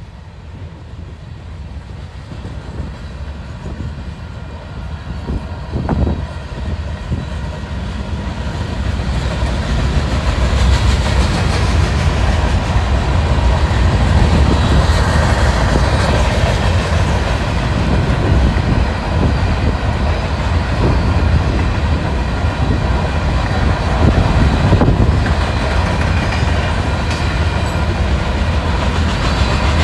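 Covered hopper cars of a freight train rolling past, their steel wheels clattering on the rails with a steady rumble. It grows louder over the first ten seconds, then stays loud.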